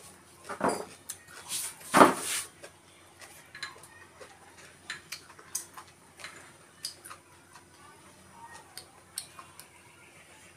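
Wooden chopsticks clicking and scraping against a small porcelain rice bowl during eating, in many short, scattered clicks. Two louder breathy sounds come in the first two seconds.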